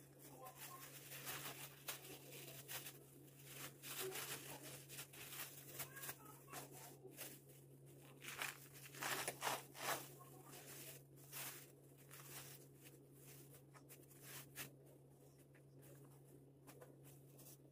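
Clear plastic bags crinkling and rustling in irregular bursts as flatbread is handled and pulled apart inside them, busiest around the middle. A steady low hum runs underneath.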